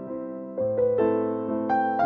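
Background music: a slow electric piano melody with notes struck about twice a second, each fading before the next.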